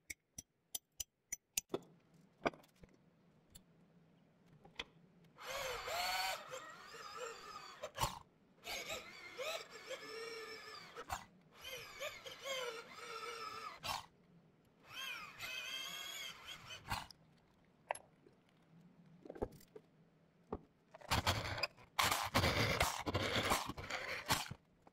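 A quick run of light metal taps on a center punch, then a corded Ryobi electric drill boring holes through a steel plate held in a vise, running in several separate bursts with a wavering squeal as the bit cuts, the last burst the loudest.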